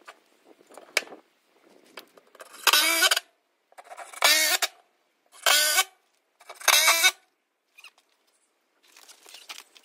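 A power drill run in four short bursts of about half a second each, its motor whine bending in pitch as it drives fasteners into the timber frame.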